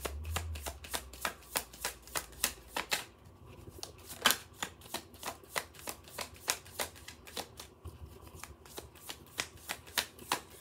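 A deck of cards shuffled by hand, overhand, with a steady run of soft clicks, about three a second, as the cards drop from hand to hand.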